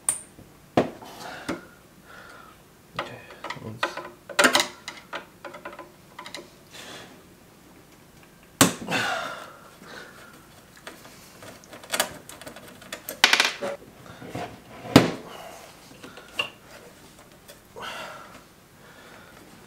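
Screwdriver working at stuck bracket screws on a car cassette head unit: irregular clicks, small knocks and scrapes of metal tool on metal, with a few louder clunks and scrapes around the middle. The screws are seized and will not turn out.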